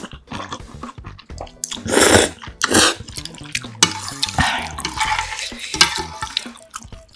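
Noodles slurped loudly twice, about two seconds in, then wooden chopsticks stirring ramen noodles through spicy broth in a metal pot, with wet squishing and small clicks.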